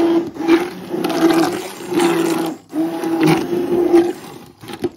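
Immersion blender running in a pot of cooked rhubarb and cherry sauce, pureeing it smooth. The motor hum dips and breaks off briefly a few times, then stops about four seconds in.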